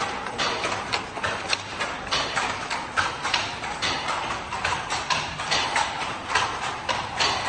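Rapid, uneven clacking: several sharp knocks a second over a steady background hum.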